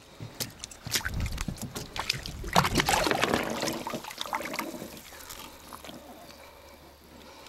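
Water splashing and sloshing as a striped bass is lowered over the side of a boat on a lip gripper and kicks free. A few sharp knocks come near the start, the splashing is loudest in the middle, and it dies away over the last few seconds.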